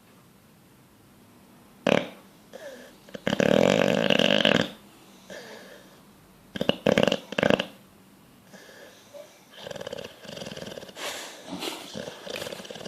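Sleeping bulldog snoring: a sharp throaty snore about two seconds in, a long buzzing snore a second later, a cluster of short snores around seven seconds, then quieter, raspy breathing sounds.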